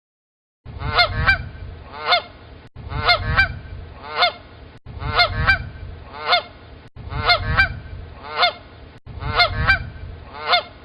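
Canada goose honking: a short run of about three loud honks, looped five times with abrupt cuts between repeats, over a low rumble.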